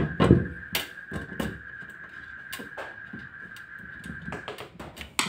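Knocks and clicks of a cordless drill-driver being set down on a workbench and of hands working the cover loose on a bench power supply's case, the loudest a thump just after the start. A steady thin high tone runs underneath and stops about four and a half seconds in.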